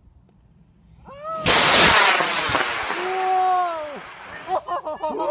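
Model rocket motor igniting about a second and a half in: a sudden loud rushing hiss that fades away over the next two seconds or so as the rocket climbs, with voices shouting over it.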